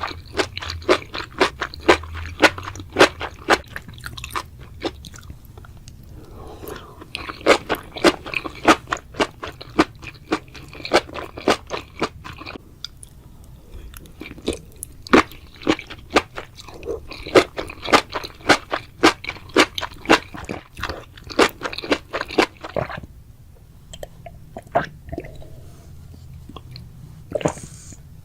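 Close-miked eating sounds: rapid crunching and chewing of crunchy mushrooms, in bursts of crackling bites with short pauses between, and a few single crunches near the end.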